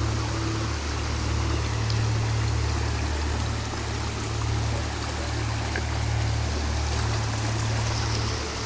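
Shallow forest river flowing in a steady, even rush of water, with a continuous trickle.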